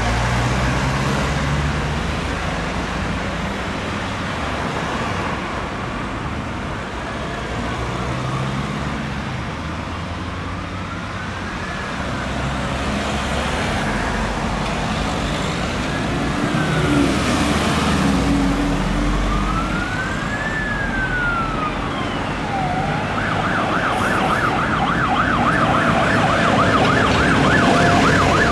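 Emergency vehicle siren in street traffic: a slow wail rising and falling about once every four seconds, switching near the end to a fast yelp, over the low rumble of engines and traffic.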